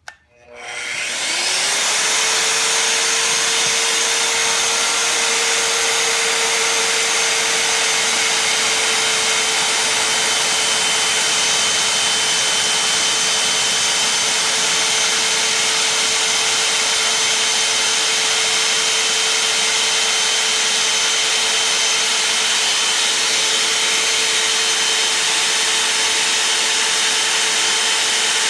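Magnetic drill's motor starting with a click, spinning up to speed within about two seconds, then running with a steady whine as it drills through thick steel plate.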